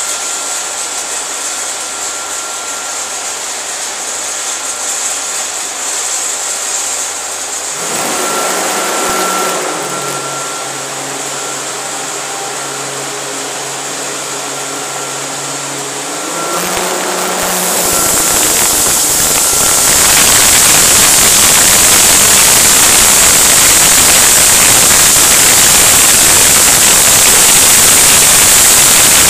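Mobile pneumatic grain conveyor running: its blower hums steadily with a high tone. From about twenty seconds in, a loud, even hiss of air and grain rushing through the conveying pipe takes over.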